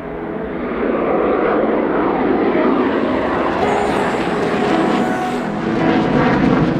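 Jet noise from an F-4 Phantom's twin J79 turbojets at high power in a steep climbing turn: a loud, dense rushing roar that swells about half a second in and holds. Background music runs faintly underneath.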